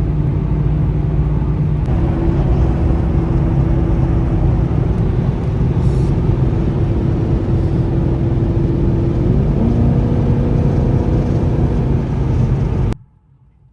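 Pontiac G8 GT's 6.2-litre LS3 V8 and road noise heard from inside the cabin while cruising: a steady engine drone over tyre rumble, its pitch stepping up about two-thirds of the way through. The sound cuts off abruptly near the end.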